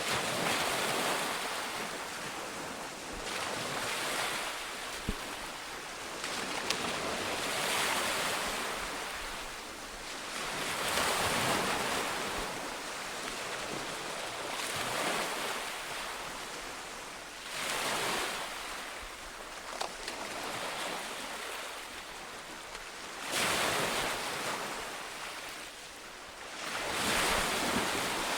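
Sea waves breaking on a shore, a washing hiss that swells and fades in a slow rhythm, about one surge every three to four seconds.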